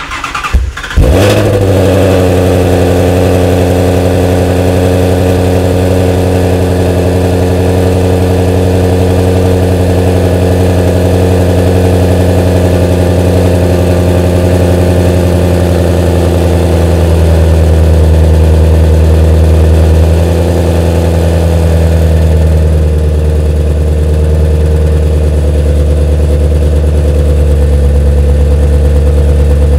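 Ford Mustang Shelby GT350's 5.2-litre flat-plane-crank V8, breathing through Kooks headers and a catted competition exhaust on E85, cranks and fires about a second in, flares up, then settles into a loud, steady cold-start idle.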